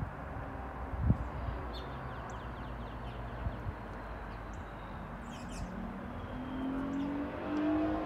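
Wind buffeting the microphone with a steady low rumble, broken by a knock about a second in and a few short bird chirps. Near the end a vehicle engine note rises in pitch as it accelerates.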